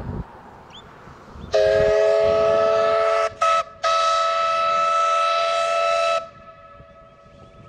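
Steam locomotive W934's whistle sounding a chord of several pitches: a long blast, a short toot, then another long blast, over the low rumble of the approaching train.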